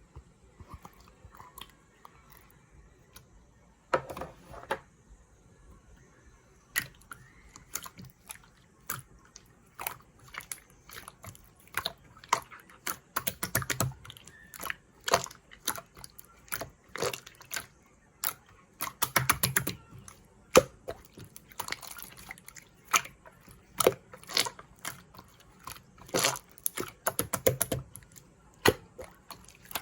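Slime being squished and pressed by hand, making irregular sticky clicks and pops. It is faint at first, with a brief burst about four seconds in, then the clicks come thick and fast from about seven seconds on.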